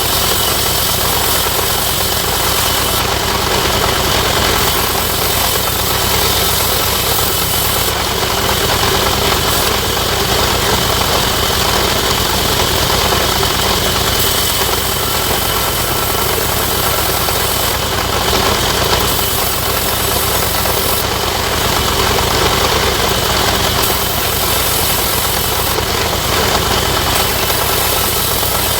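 Sawmill machinery running steadily with a loud, engine-like drone, a high hiss on top coming and going every few seconds.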